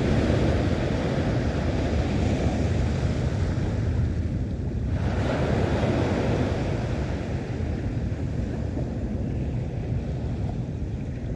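Sea waves washing in, swelling at the start and again about five seconds in, with wind rumbling on the microphone.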